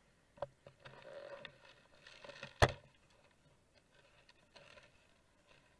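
Handling noise from a dashcam knocked loose in a crash and lying in the dirt as someone picks it up: a few light knocks and rustling, then one sharp knock about two and a half seconds in.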